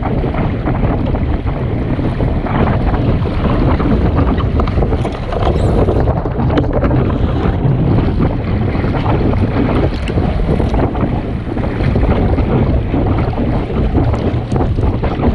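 Wind buffeting the microphone aboard a Sunfish sailing dinghy under way, with water rushing and splashing along the hull and a few short, sharper slaps.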